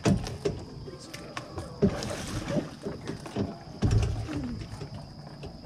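Irregular knocks and thumps against the fishing boat and water splashing as a big blue catfish is brought in over the side, with a few short low voice sounds.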